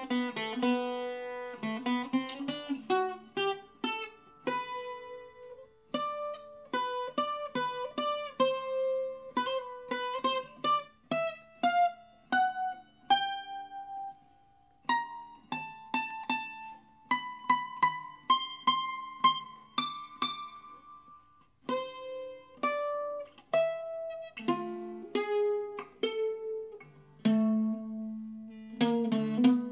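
Handmade octave mandolin with a Sitka spruce top and Caribbean rosewood back and sides, played solo: a picked melody of single notes over a ringing low string, with quick repeated picking near the end.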